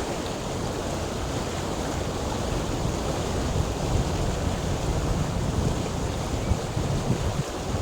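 Flowing water rushing steadily, with a deep rumble underneath.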